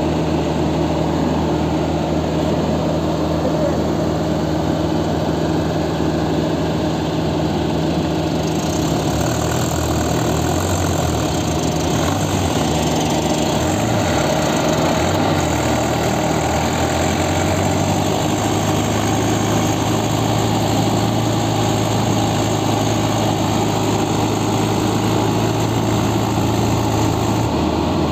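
Diesel engines of a Yanmar AW70GV tracked combine harvester and a bogged-down Mahindra tractor running together. About eight seconds in, the engine note shifts and a high hiss joins it as the machines work, holding until near the end.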